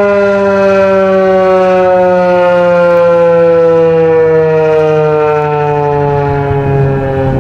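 Federal Signal 2001 electromechanical outdoor warning siren sounding loudly, a single wailing tone that slides slowly and steadily lower in pitch as the siren winds down.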